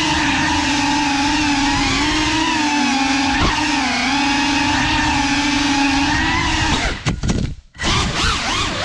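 Cinewhoop FPV drone (GEPRC Cinelog 35) with brushless motors and ducted propellers whining steadily, the pitch dipping and rising with the throttle. About seven seconds in the throttle is cut and the sound falls away almost to nothing for under a second before the motors spin back up.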